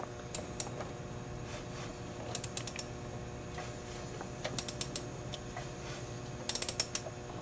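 Socket ratchet clicking in four short bursts of rapid clicks about two seconds apart, as the wrench is swung back between pulls while turning the crankshaft by hand toward top dead centre. A faint steady hum runs underneath.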